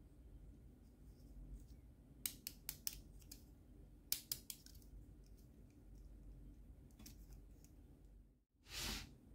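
Hard plastic clicks from the hinged wing parts of an HG 1/144 Shin Burning Gundam backpack being folded and moved, in two quick runs of about four clicks each, with a few fainter ones later. A short soft rush of noise comes near the end.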